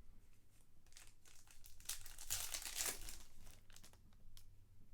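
Trading card pack wrapper being torn open and crinkled by hand, with the rustle loudest about two seconds in.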